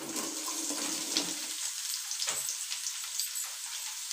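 Sliced radish tipped into hot oil with green chillies in a kadhai, frying with a steady sizzle and a few sharp crackles.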